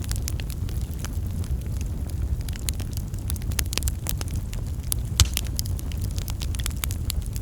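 Wood fire crackling, with irregular sharp pops over a low, steady rumble; one louder pop about five seconds in.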